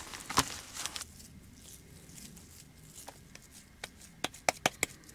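Hands mixing raw ground turkey with seasonings, the sticky meat giving a few sharp wet clicks early on and a quick run of them near the end.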